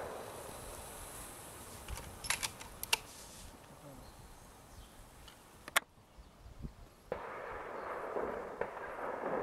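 Quiet outdoor background with a few light clicks, then a single sharp crack just past the middle, after which the background turns quieter.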